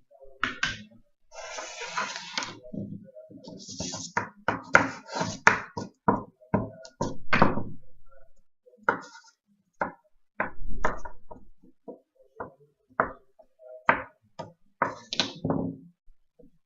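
Irregular series of knocks and taps, several a second in places.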